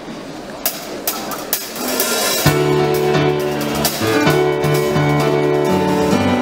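A live band of drum kit, electric guitars and keyboards starts playing about two and a half seconds in, after a few sharp drum or cymbal hits over a murmur of voices. It plays held chords with a bass line and drums.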